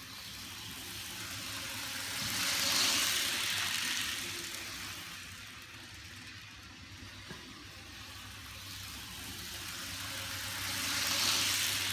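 HO scale Goodyear train set running fast on sectional track, its motor and wheels making a steady whir. It grows louder as the train passes close about three seconds in and again near the end.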